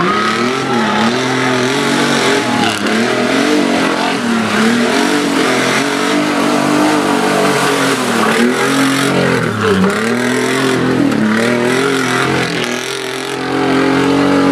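Compact pickup truck's engine revving up and down again and again as it is driven hard over a rough dirt course, held at higher revs and louder near the end.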